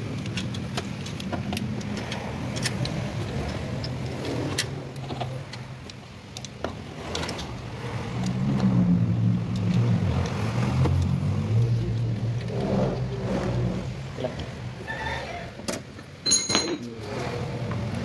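Toyota Vios engine idling with a steady low hum that grows louder in the middle, its alternator suspected of a noisy bearing. Scattered light clicks and taps come from hands working around the alternator, with a brief sharp sound about sixteen seconds in.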